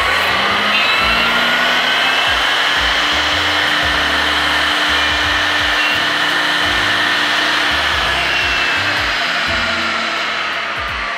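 Router spindle motor of a jig-guided joinery machine running and cutting wood as it is moved along the workpiece. Its steady whine slowly rises and falls in pitch and eases off near the end. It is clearing the leftover waste around the tenons of the male half of a rounded finger joint.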